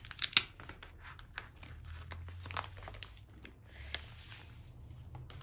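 Clear plastic packaging sleeve crinkling and crackling as it is handled and a stack of papers slides out of it: a quick cluster of crackles in the first half second, then scattered softer ones.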